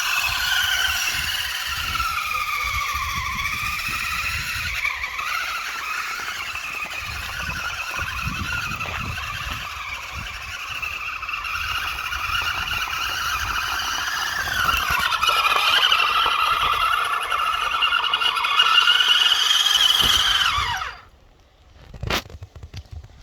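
Electric RC car's motor and gears whining at a high pitch that rises and falls with the throttle. It cuts off suddenly about 21 seconds in, followed by a single click.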